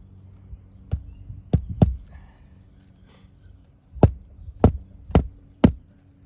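Hammer driving roofing nails into asphalt shingles: seven sharp strikes, three in quick succession about a second in, then four more, about half a second apart, in the second half.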